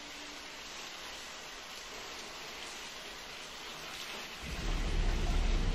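Shower water spraying and splashing in a steady hiss. About four and a half seconds in, a louder deep rumble swells in underneath.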